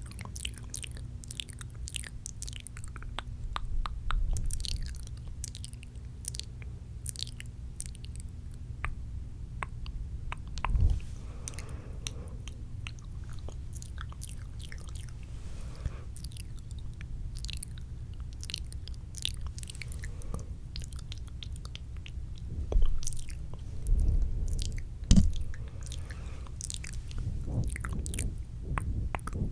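Close-miked wet mouth sounds: irregular spitty clicks and smacks of lips and tongue right against the microphone, with a few louder low bumps of the mic being touched, over a steady low hum.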